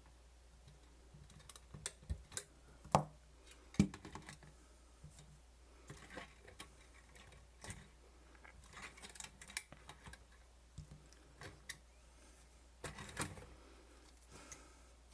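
Irregular small clicks, taps and knocks of hands handling a camcorder and small parts on a workbench, with louder knocks about three and four seconds in and again near the end.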